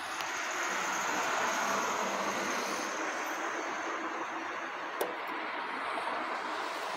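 Steady rushing background noise, with one sharp click about five seconds in as a finger presses a pusher on a Zodiac automatic chronograph with a Valjoux 7750 movement.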